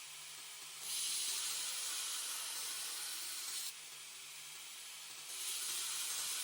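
Steady high hiss in two long stretches of about three seconds each, switching on and off sharply, over a faint steady low hum.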